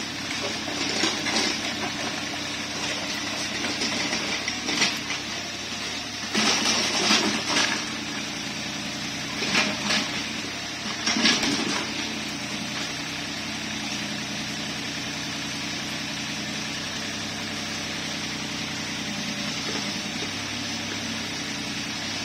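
Mini excavator engine running steadily, with several loud scraping clanks from the machine working in the first half.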